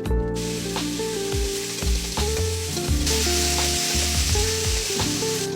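Food frying in a hot pan, the sizzle starting suddenly about half a second in and growing louder about halfway through, with background music playing over it.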